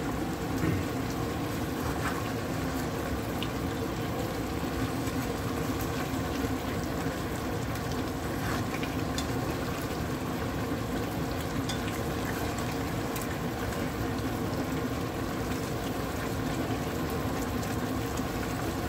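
Mango talkari boiling hard in an uncovered aluminium pot on high heat as its cooking liquid boils down, with a spoon now and then scraping through the mango pieces. A steady hum runs underneath.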